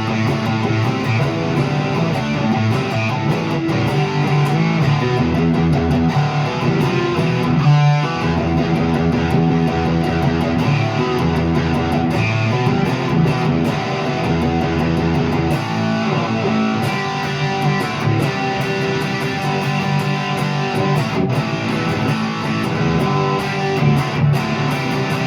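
1989 Fender HM Strat electric guitar played through a Peavey Classic 50 amp and a Marshall 1965A 4x10 cabinet. It plays a continuous passage of notes and chords, with a brief break about eight seconds in.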